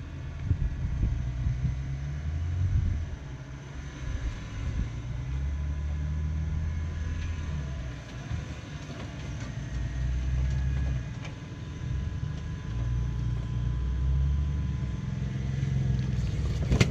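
Jeep Wrangler's engine crawling over rock at low revs, the revs rising and easing every second or two as it climbs.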